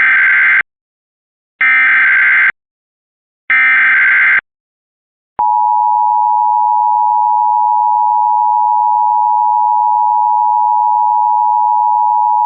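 Emergency Alert System signal for a tornado warning: three short bursts of the warbling digital header tones, then about five seconds in the steady two-tone attention signal begins.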